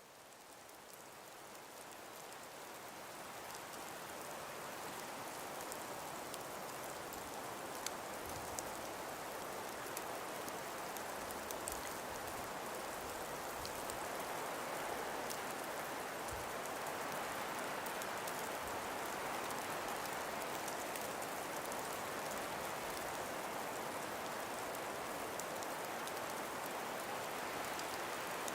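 Calm breeze through ice-covered forest trees: a steady, even hiss with faint light ticks, fading in over the first few seconds.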